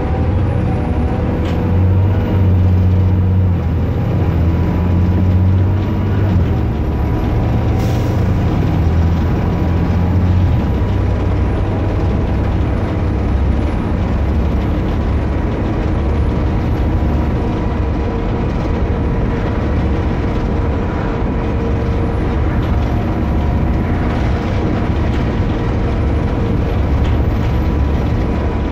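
Engine of an Alexander ALX400 double-decker bus heard from the rear lower-deck seats while the bus is under way: a loud, low rumble that is heaviest for the first ten seconds and then eases off, with a steady high whine over it throughout.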